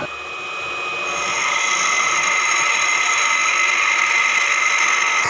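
Bench grinder running with a steady high whine as a high-speed-steel lathe tool bit is ground on the wheel; the sound swells over the first second or so, then holds steady.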